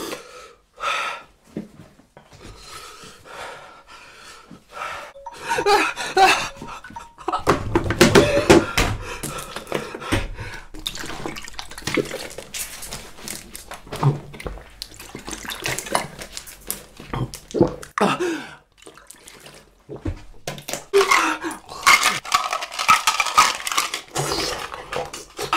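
Water gulped and splashed from a plastic bottle, with handling clicks, followed by pained gasping and breathing. It is a mouth burning from an extremely hot chip.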